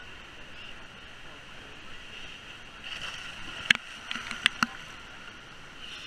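Steady rush of water sheeting down a smooth rock slide into the pool, with a few short sharp clicks or splashes a little past the middle.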